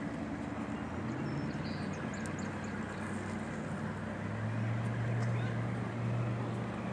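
Distant motorboat engine droning steadily, its hum growing louder about four seconds in, over a steady hiss of outdoor wind and water.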